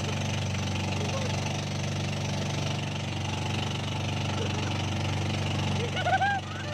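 An engine running steadily at an even idle-like pitch, with voices starting near the end.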